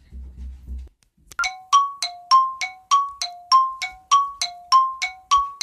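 A chiming tune of bell-like struck notes, about three a second, alternating between a higher and a lower pitch and ringing briefly after each strike, starting a little over a second in. A low rumble comes just before it.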